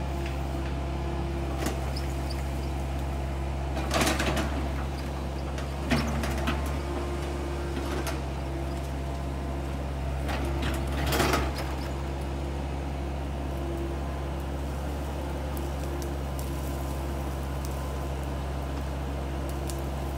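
Excavator engine running steadily with a low hum, broken by short cracking, crunching bursts about four, six and eleven seconds in as trees and brush are pushed down.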